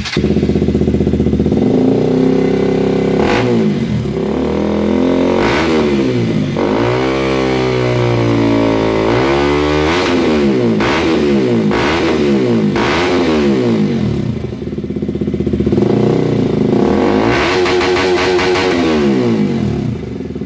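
KTM RC 200's single-cylinder four-stroke engine revving through a Yoshimura R-11 full exhaust system, blipped up and back down again and again, with a couple of longer revs among the short ones.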